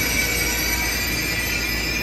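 ICE 3 (DB class 403) high-speed train rolling slowly past, its wheels squealing in a steady, high-pitched squeal of several tones over the running noise.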